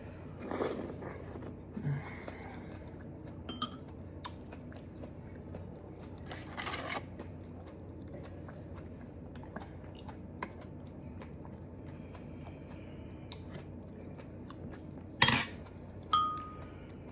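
A person chewing and eating food close to the microphone, with scattered clicks of cutlery and dishes and a few louder crunches.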